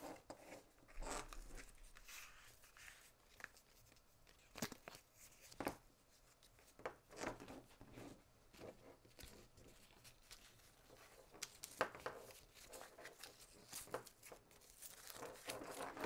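Faint handling noise from a coiled power cable being wrapped and secured with a hook-and-loop cable tie: scattered soft rips, rustles and small clicks as the cable is shifted and the strap is pulled and pressed shut.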